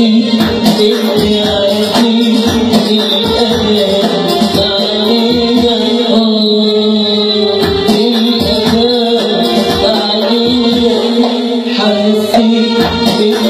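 Live Arabic music: a male singer's amplified voice over a band with sustained instruments and regular hand-drum percussion, loud throughout.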